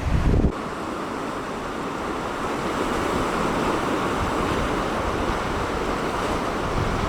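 Sea surf breaking and washing on a beach, a steady rush that swells slightly. For the first half-second wind buffets the microphone, then cuts off suddenly.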